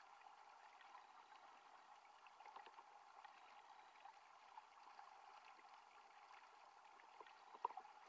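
Faint underwater sound of a mountain-stream pool, picked up by a submerged camera: a steady, muffled wash of water with small crackles, and one sharper click near the end.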